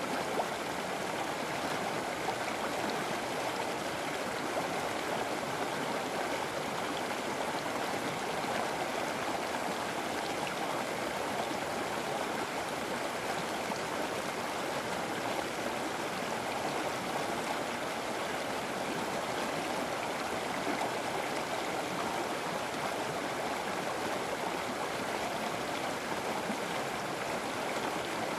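Flowing river water rushing and gurgling steadily over rocks.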